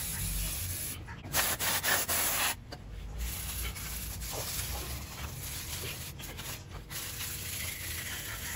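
Aerosol brake cleaner hissing in a spray onto a brake caliper for about a second and a half, starting about a second in. Before and after it, a wire brush scrubs the caliper with a rough scratching.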